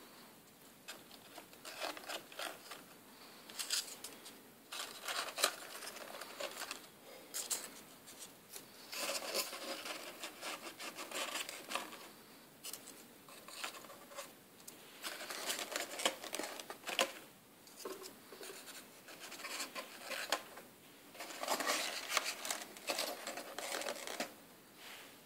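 Paper rustling and crinkling in irregular bursts of a second or two, with quieter gaps between, as folded paper leaves and roses are handled and tucked into a cardboard box.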